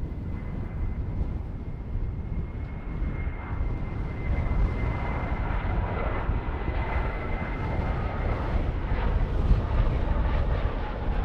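Airbus A319's CFM56 jet engines on approach to land: a steady high whine that drops out about eight seconds in while the engine rush grows louder. Strong wind buffets the microphone with a heavy low rumble throughout.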